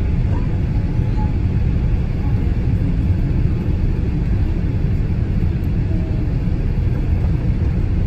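Steady low rumble of a Boeing 787 airliner's engines and airflow, heard inside the cabin from a window seat, on final approach just before touchdown.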